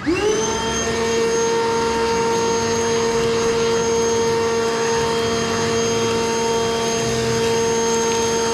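An electric motor spins up quickly and then runs at a steady high whine over a rushing hiss, like a shop vacuum or power tool running without load.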